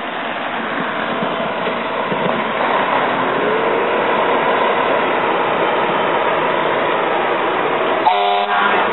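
Fire apparatus engines running as the trucks pull out, with a siren starting to wind up, rising and then holding, about three and a half seconds in. Near the end comes one short air horn blast.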